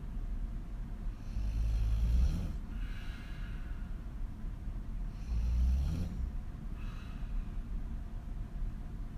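A woman snoring loudly on her back with her mouth open: two breaths about four seconds apart, each a low rattling snore on the in-breath followed by a softer, airy out-breath.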